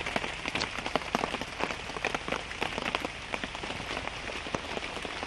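Rain falling steadily, with many irregular sharp drops and drips landing close by.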